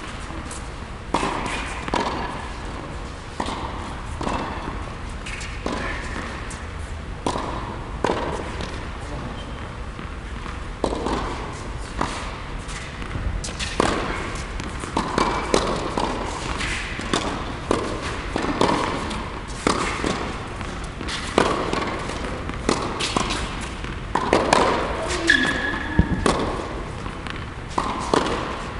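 Tennis balls struck with a racket on serves and bouncing on a hard court, a string of irregular sharp pops and thuds echoing in a large indoor tennis hall.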